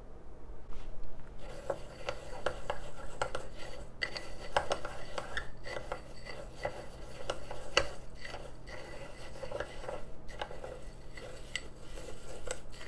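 Small metal spoon stirring coarse Dead Sea salt and mica powder in a small glass bowl. The crystals make a gritty scraping, with frequent sharp clinks of the spoon against the glass. It starts about a second in.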